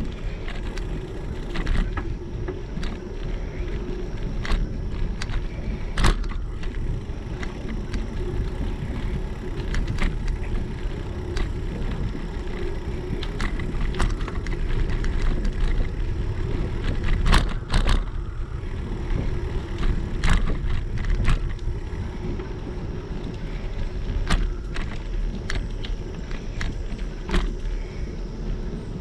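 Bicycle rolling along a paved trail: a steady rumble of tyres on asphalt and wind on the action camera's microphone, with irregular sharp clicks and rattles about once a second as the bike goes over bumps.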